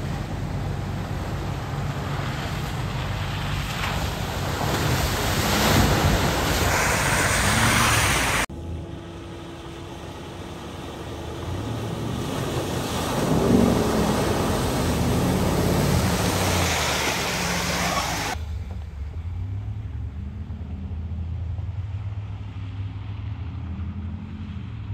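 A Ram 2500 Power Wagon's 6.4-litre Hemi V8 pulls the truck through deep muddy water. The engine runs over a continuous rush and splash of water off the tyres and front end. The sound changes abruptly twice, and in the quieter last part the engine's revs rise and fall.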